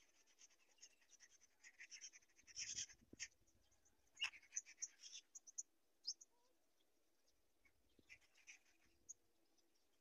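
Black-winged kite chicks in the nest: faint scratchy rustling and short high chirps in a few bursts, the busiest about two to five seconds in and again near the end.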